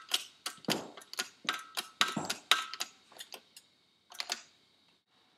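Sharp metal-on-metal clicks and taps with a short ring, about two or three a second, then a quick pair about four seconds in. They come from a socket and shop-press ram knocking against a turbo bearing housing while the oil restrictor is pressed in.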